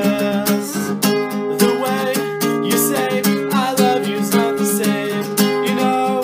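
Acoustic guitar strummed in a steady rhythm, with a voice singing over it: an acoustic pop-punk song.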